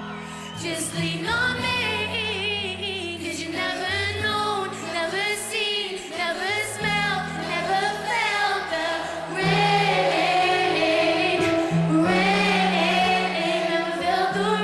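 Live pop music: a female lead vocal with layered backing voices sung over sustained bass and synth chords.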